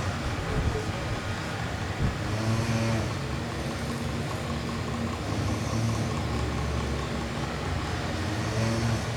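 Miyako mini electric fan running: a steady hum, with a low tone that swells and fades about every three seconds.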